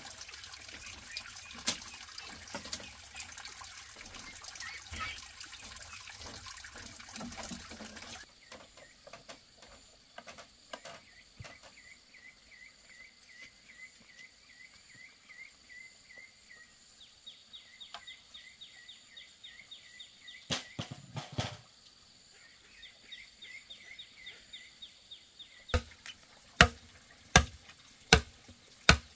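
A steady rush of running water that stops abruptly about eight seconds in, then rapid repeated high chirping calls, then near the end a machete chopping a green bamboo pole: about five sharp blows under a second apart, the loudest sounds here.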